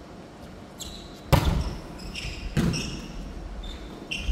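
Volleyball struck twice by players' hands or forearms, a sharp slap about a second in and another just over a second later, with sneakers squeaking on the wooden gym floor between them.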